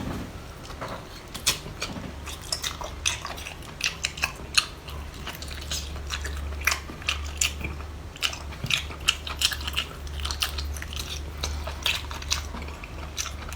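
A person chewing and biting food close to the microphone, with many irregular small crunches and mouth clicks, over a steady low hum.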